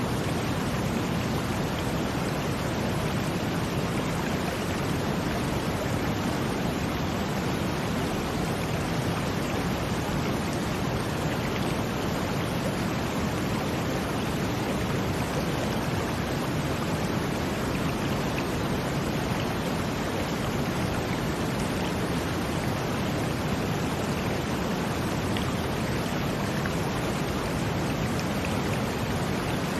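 Brown noise blended with running water: a steady, even rush, heaviest in the low range, with no swells or breaks.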